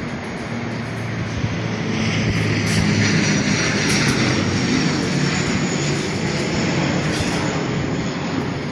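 Machinery running steadily, a low engine hum under broad noise with scattered clicks and knocks, swelling louder for several seconds in the middle.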